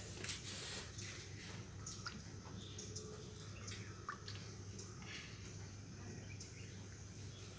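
Faint, scattered plinks of water dripping into a plastic bucket of water, one a quick rising plink about four seconds in, over a steady low hum.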